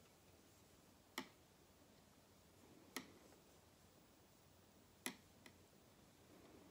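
Three sharp clicks about two seconds apart, with a fainter one just after the third: circular knitting needle tips clicking while stitches are handled. Otherwise near silence.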